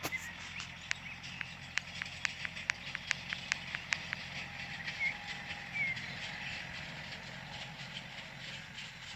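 A run of sharp clicks, about three or four a second, that stops about four seconds in, over a steady low hum. Two brief high chirps follow a little later.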